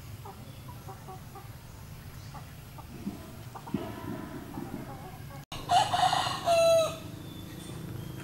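A rooster crows once, about six seconds in, a call of a little over a second ending on a held note, and it is the loudest sound here. Before it, faint rustling and light taps of a spring-roll wrapper being rolled by hand on a wooden board.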